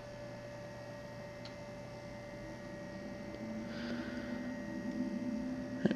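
Steady electrical mains hum, with one faint click about one and a half seconds in and faint handling noise growing slightly in the second half.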